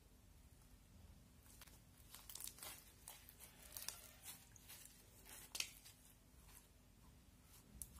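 Faint crackling and crunching of orange foam-bead slime being stretched and squeezed by hand, in a run of short pops and crinkles from about a second and a half in.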